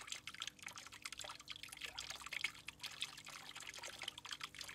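A thin stream of water pouring into a garden pond: a faint, steady trickling splash with small drips and bubbles on the surface.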